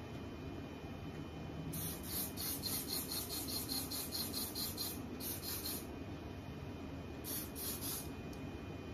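Aerosol hair spray hissing in pulsing bursts: a long one starting about two seconds in, a short one around five seconds, and another near the end.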